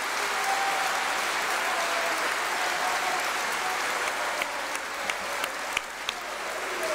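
Sustained applause from a large audience in an assembly chamber, steady throughout, with a few faint voices calling out within it.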